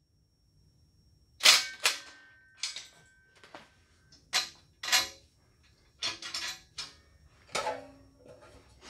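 Sharp metallic clanks and knocks, about ten spread over several seconds, some ringing briefly, from the steel mounting plate and bolts of a lift's power-unit cart being handled and taken apart. The loudest clank comes about a second and a half in.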